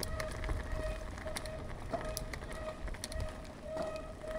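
Mountain bike rolling downhill on a concrete road: tyre noise and low rumble with scattered clicks and rattles from the bike.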